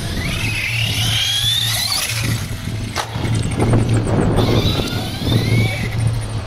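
Electric 4x4 RC trucks running on concrete, their motors whining and rising in pitch as they accelerate, twice, over the rumble of tyres on the surface. A sharp click sounds about three seconds in.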